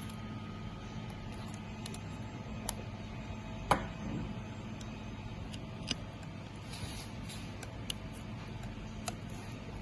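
Tools and small parts being handled at a workbench: scattered small clicks and taps, one sharper knock about a third of the way in, over a steady low hum.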